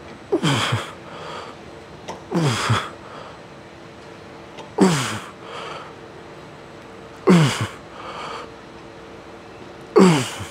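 A man grunting hard with each rep of a heavy leg set, five times at about two-and-a-half-second intervals, each a breathy groan that falls steeply in pitch.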